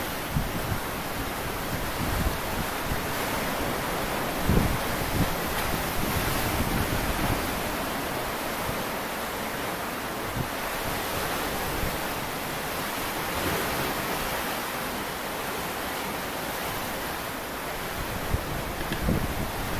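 Sea waves washing in a steady hiss of surf, with wind buffeting the microphone in low gusts, strongest about four and a half seconds in and again near the end.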